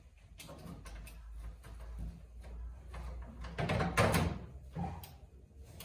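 Scrapes and knocks of objects being handled and slid, the loudest about four seconds in, over a low steady hum.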